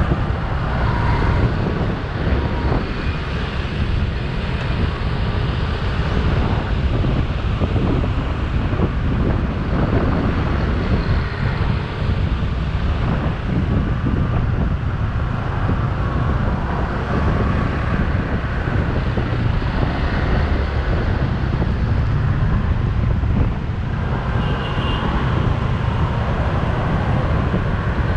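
Motorcycle riding through city traffic: a steady low engine and road rumble, with wind buffeting the microphone and surrounding traffic noise.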